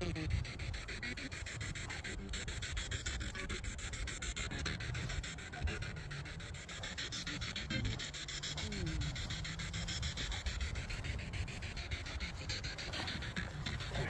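Handheld spirit box sweeping rapidly through radio stations, giving a steady fast-chopped static with brief scraps of radio sound.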